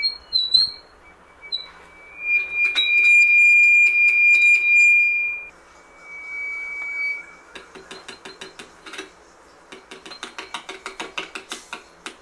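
Acoustic feedback squeal from a PAM8403 amplifier board whose small loudspeaker sits beside its electret microphone: a steady high-pitched tone that breaks off and returns, ending about seven seconds in. Then rapid, regular clicks, about five a second, come through the speaker.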